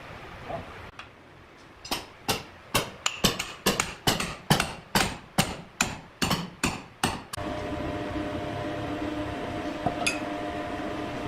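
Rapid, even hammer blows, about three a second, struck on wood in a woodworking shop. They stop abruptly about seven seconds in, and a machine's steady hum carries on after them.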